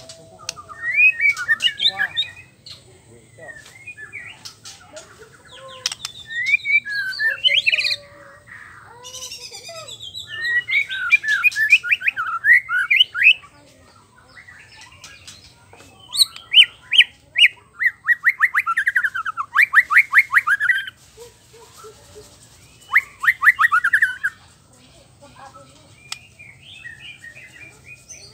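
Male white-rumped shama singing in about five loud bursts of varied, quick whistled phrases and rapid trills, with short pauses between them.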